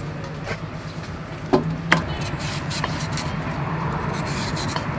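Kitchen knife shaving the skin off a green banana in short scratchy strokes, over a steady low hum like a running engine. There are two sharp knocks in quick succession about one and a half seconds in.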